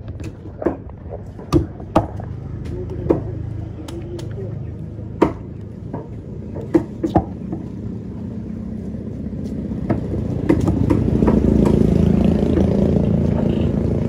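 A fish knife knocks and taps against a chopping block while a skipjack tuna is cut, giving sharp irregular knocks. Under it a motor vehicle engine runs and grows louder from about ten seconds in, becoming the loudest sound.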